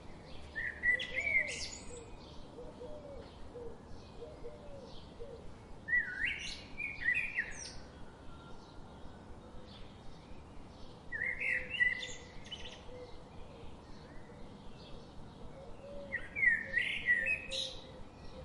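A songbird sings a short, fast, warbling phrase four times, about every five seconds. Fainter chirps from other birds run in the gaps, with a soft low warble underneath.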